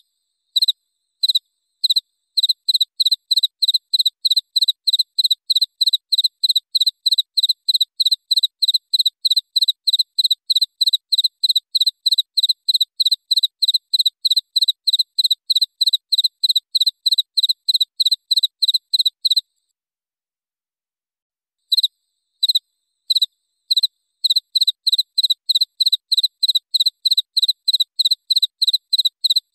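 A cricket chirping at one clear high pitch, starting with a few spaced chirps and settling into a steady train of about three chirps a second. It stops for about two seconds past the middle, then starts again the same way.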